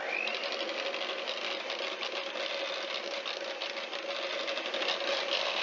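SilverCrest electric hand mixer running steadily, its beaters whisking melted butter, powdered sugar and sour cream in a plastic measuring jug. It switches on with a quick rise in pitch and cuts off suddenly at the end.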